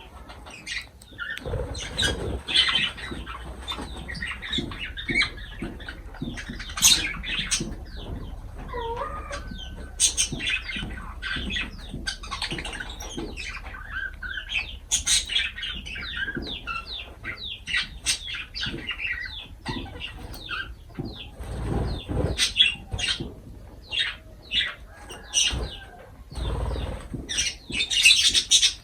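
Lovebirds calling with many short, sharp chirps and some brief gliding notes, with wing flapping and a few low thumps.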